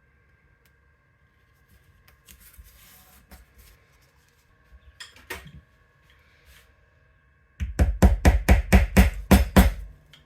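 Quiet rustling and handling, then a quick run of about nine loud knocks, about four a second, near the end.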